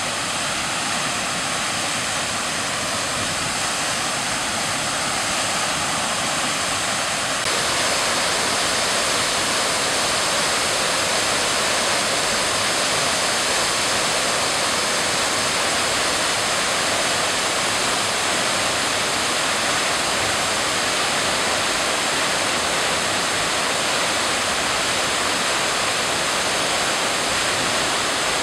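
Daisen Falls pouring: a loud, steady rush of falling water, which gets a little louder about seven seconds in.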